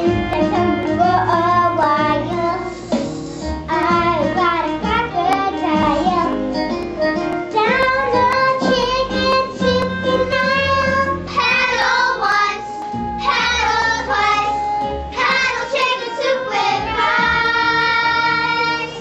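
Children singing a show tune with instrumental accompaniment.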